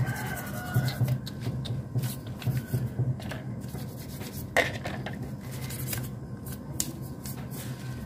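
Hand scraping and rubbing on motorcycle engine parts: irregular short scratchy strokes over a steady low hum.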